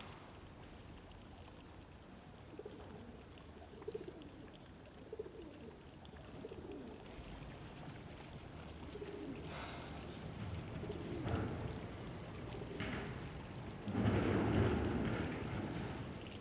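Small fountain trickling steadily, with pigeons cooing faintly now and then. About fourteen seconds in, water splashes louder at the fountain basin.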